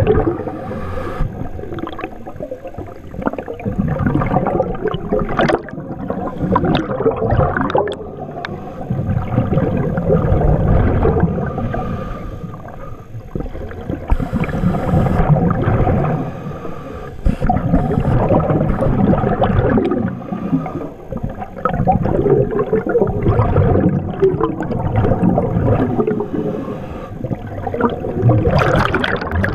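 Underwater bubbling and gurgling from a scuba diver's exhaled breath, swelling and fading in surges every few seconds.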